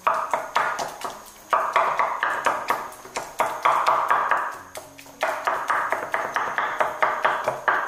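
Wooden rolling pin pounding steamed pumpkin into a mash in a ceramic bowl: rapid knocks, about seven a second, in four runs with short pauses, each stroke making the bowl ring briefly.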